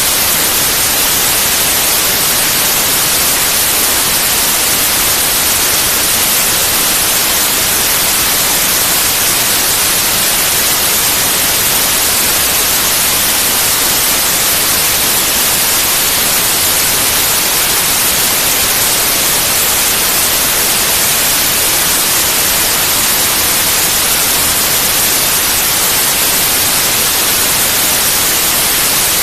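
Steady, unbroken white noise: an even hiss across all pitches, leaning bright, with no change in level.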